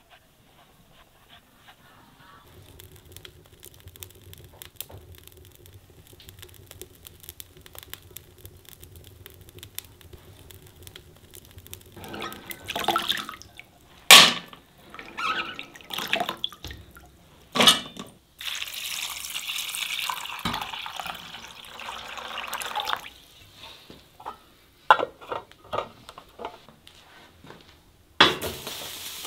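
Hands washing soaked chickpeas in a bowl of water: splashing and sloshing with a few sharp clanks, then water pouring steadily for about five seconds.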